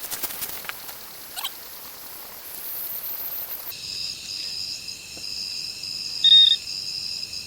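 Insects, crickets trilling steadily in a pulsing chorus through the second half, with one short, loud high chirp about six seconds in. Before that, a few sharp clicks over a hiss.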